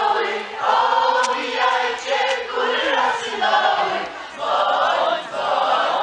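A group of people singing a song together in chorus, in phrases about a second long.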